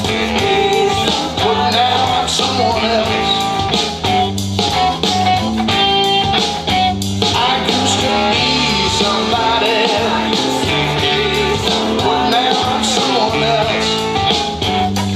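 A blues-rock song with guitar and band, played back through a vintage Marantz 1060 integrated amplifier and its speakers.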